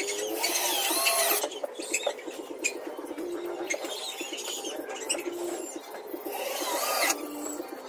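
A cordless drill running in two short bursts, one about half a second in and one near the end. Pigeons coo in the background.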